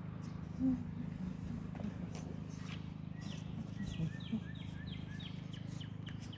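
A bird singing a run of short, repeated, down-slurred whistled notes in the second half, over a steady low hum, with a few faint clicks.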